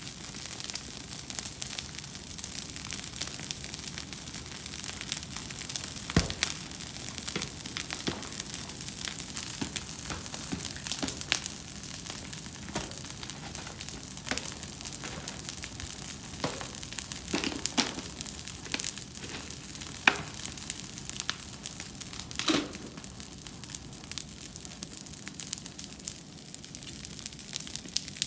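Open brush fires of cut green branches burning, crackling and hissing steadily with many small pops, and a few louder snaps about six seconds in and twice around twenty seconds.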